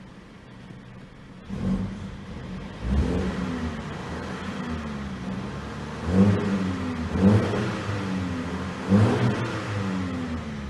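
Car engine revving up sharply about five times, settling back between each rev.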